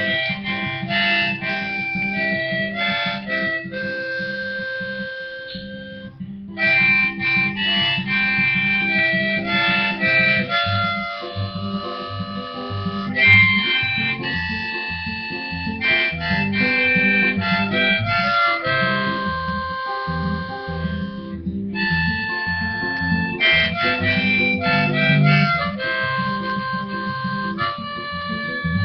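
Harmonica in a neck rack playing an instrumental break over a strummed acoustic guitar. The harmonica stops briefly twice, about six seconds in and about two-thirds of the way through, while the guitar keeps going.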